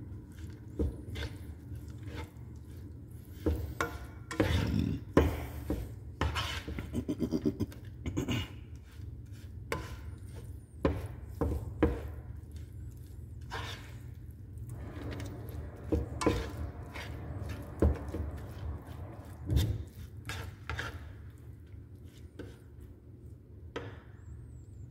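Black slotted spatula stirring and scraping egg fried rice around a nonstick frying pan, with irregular scrapes and knocks against the pan over a steady low hum.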